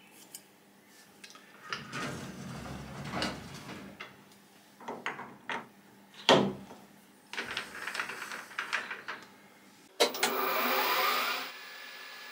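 Metal clicks and knocks of tooling being handled and fitted on a lathe's toolpost. About ten seconds in, the 1980s Colchester lathe starts up with a sudden loud burst, then settles into a steady running hum with a thin high whine as the chuck spins.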